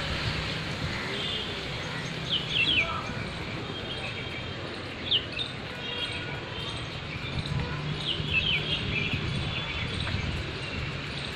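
Birds chirping in short, sharp downward calls and brief trills, in clusters a few seconds apart, over a steady low background hum.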